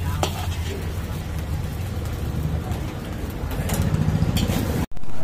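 Steel ladle scraping and knocking against a large iron wok as egg fried rice is stir-fried, a few sharp scrapes over a steady low rumble. The sound breaks off suddenly near the end.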